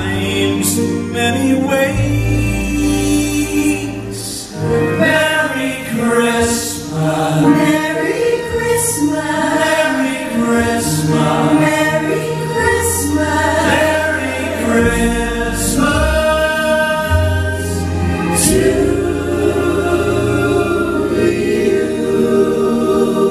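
A mixed vocal group of women and men singing a Christmas ballad together in close harmony, holding long notes, backed by a live band with a sustained bass line.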